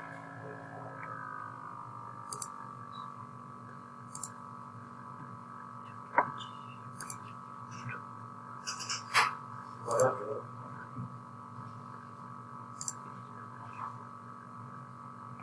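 Computer mouse clicking about eight times at irregular intervals over a steady background hum of several held tones.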